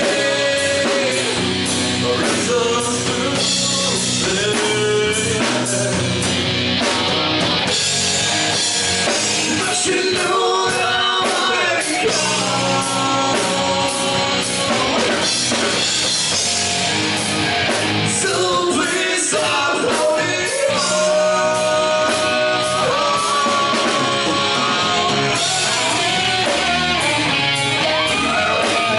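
Live rock band playing: a male singer over electric guitars, bass guitar and a drum kit.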